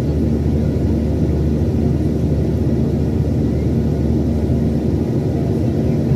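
Steady drone of a Boeing 737-800's jet engines and airflow heard from inside the passenger cabin, a deep, even rumble with a few steady hums running through it.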